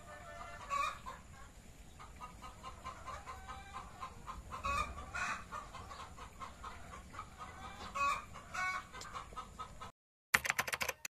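Chickens clucking, with a few louder calls about a second in, around five seconds and around eight seconds. The sound cuts off near the end and is followed by a brief, loud burst.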